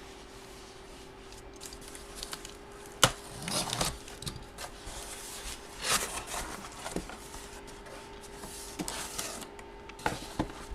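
A box and its wrapping being handled and opened by hand: scattered clicks, a sharp snap about three seconds in, and several short bursts of rustling, over a faint steady hum.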